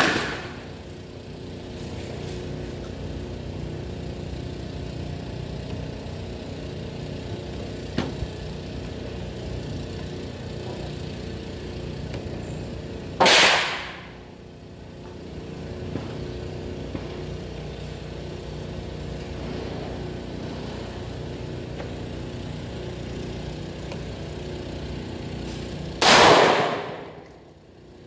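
Two single shots from an AR-15 rifle built as an M16A2 clone, about 13 seconds apart, the second near the end, with the tail of an earlier shot at the very start. A sharp click sounds about 8 seconds in, over a steady low mechanical hum.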